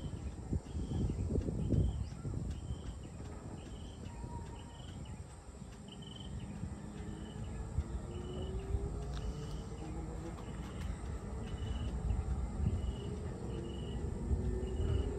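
Evening outdoor ambience: a short, high chirp repeats steadily about once a second over a low rumble. A faint engine rises in pitch around the middle and again near the end.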